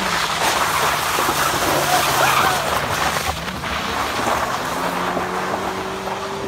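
Pickup truck engine held at high revs while the rear wheels spin on wet gravel and dirt, throwing it up, loudest in the first half; the engine note climbs and holds steady near the end.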